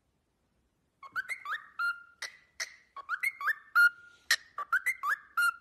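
Cockatiel whistling the same short phrase over and over, a rising glide into a held note, after about a second of silence, with sharp clicks between the phrases from its beak tapping the phone screen.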